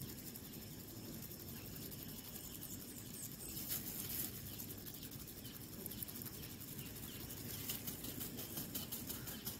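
Quiet, fast rasping of flour being shaken through a plastic mesh sieve over a metal tray, with faint bird chirps in the background.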